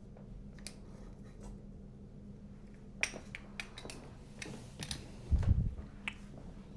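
Light metal clicks and rattles as an unscrewed doorknob's two halves are pulled apart out of the door, with a dull thump about five seconds in.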